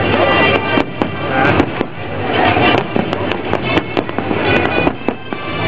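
Aerial firework shells bursting in quick succession: many sharp bangs and crackles over a continuous din.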